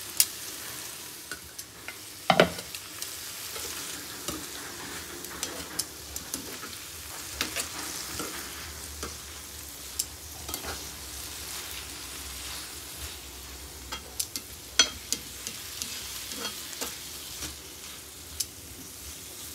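Green beans and carrot strips sizzling in a hot oiled pan as they are stir-fried and tossed with kitchen tongs, with scattered clicks and knocks of the tongs against the pan over a steady sizzle. The loudest knock comes about two seconds in.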